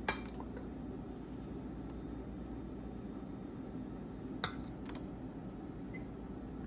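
Kitchen utensils clinking lightly against a plate: one click just after the start, then another about four and a half seconds in and a fainter one right after it. A steady low room hum runs underneath.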